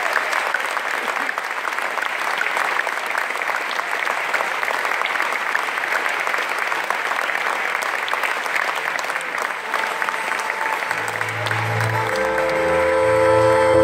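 Audience applauding. About eleven seconds in, the clapping thins and a folk band of violin, hackbrett, double bass and accordion starts the next tune, with low bass notes and held accordion tones.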